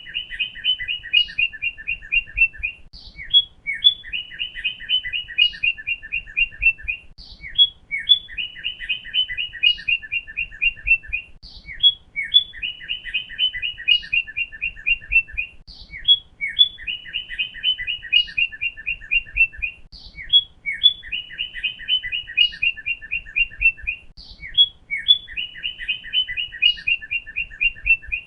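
Cardinal singing: a few clear whistled notes, then a fast run of short repeated notes lasting about two seconds. The same phrase repeats about every four seconds.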